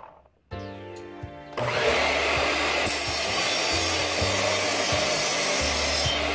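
Miter saw motor starting with a whine, then about a second later the blade biting into a small wooden block and cutting steadily through it.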